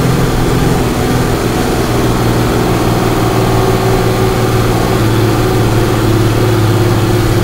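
Star fire truck's engine running steadily under way, heard from inside the cab, with a constant even pitch.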